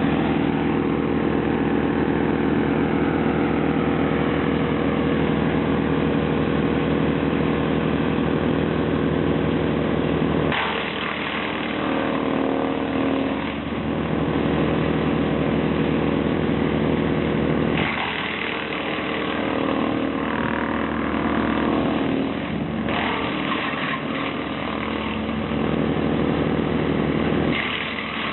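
Petrol-engined wood chipper running hard and steadily, its sound shifting several times as it works, with a brighter, harsher grinding at each change.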